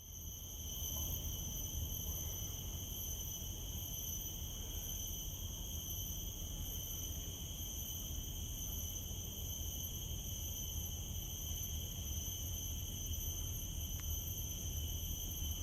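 Insects keep up a steady, high-pitched, ringing drone, with a low rumble underneath.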